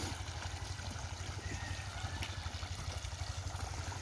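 Irrigation water gushing from a plastic pipe outlet and spreading over a flooded field. Under it runs a steady, low, rapidly throbbing hum.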